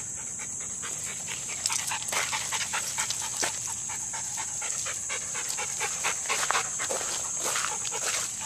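A dog panting close to the microphone, with a steady high-pitched insect drone behind it.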